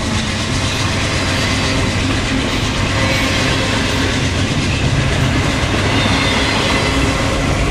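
Canadian Pacific freight cars rolling past close by: a steady rumble of steel wheels on rail with faint, irregular clacking.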